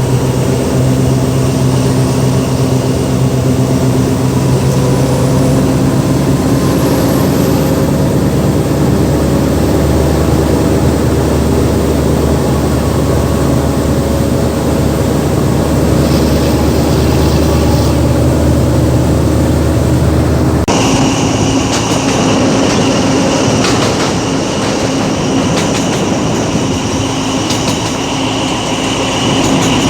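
Diesel-hauled passenger train running: a steady low engine drone with rolling rail noise. About 21 seconds in, the sound changes abruptly to a busier clatter of wheels over rail joints with a higher whine.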